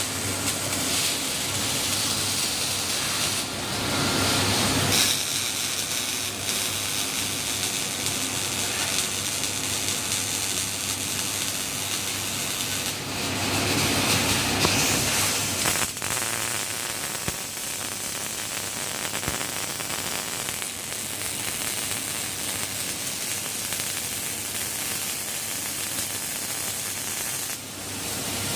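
A welding robot's arc running on rectangular pipe: a steady, even noise that shifts in tone about five seconds in and again around the middle.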